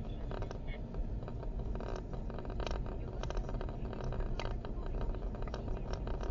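Low road and engine rumble inside a moving car, picked up by a failing dashcam's own microphone, with irregular light clicks and rattles several times a second. This tapping 'koto-koto' rattle is the dashcam's abnormal noise, the sign of the unit being broken.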